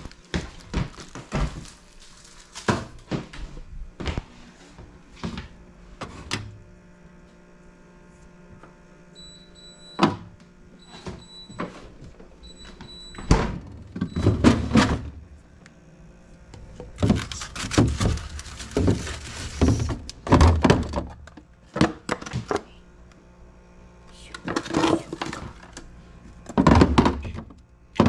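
Refrigerator being cleaned out: repeated knocks and thunks of containers, shelves and drawers being handled, with a few longer stretches of rustling noise around the middle and near the end.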